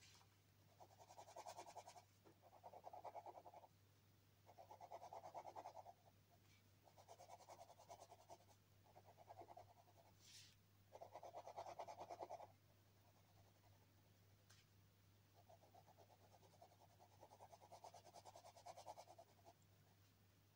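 Black pen scribbling on paper in quick back-and-forth strokes, in about seven short bursts of a second or two each, faint, over a steady low hum.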